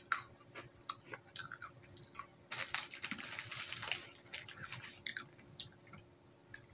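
Crunchy bite into a matcha Pocky biscuit stick, then chewing with short crisp crunches. About two and a half seconds in, a couple of seconds of rustling as the snack packet is handled.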